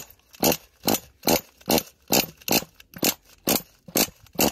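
Pull-start cord of a .28 nitro RC truck engine being yanked in quick short pulls, about eleven at a little over two a second, without the engine catching.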